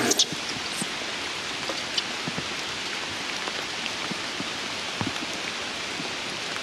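Steady rain falling on stone and leaves, an even hiss with scattered drop ticks. A short, sharp sound comes right at the start.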